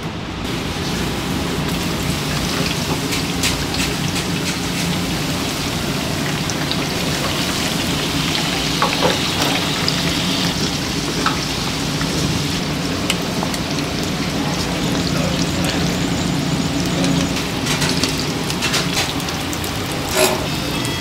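Panko-breaded shrimp deep-frying in a commercial fryer: the hot oil sizzles steadily with scattered sharp pops and crackles, over a low steady hum.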